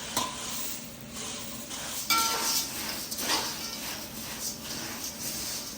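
A spoon stirring and tossing puffed rice in a kadai of tempered spices: repeated scraping strokes about every half second, with a sharp clink of the spoon against the pan about two seconds in.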